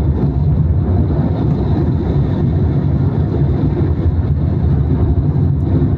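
Strong wind blowing across the microphone: a loud, steady low rumble.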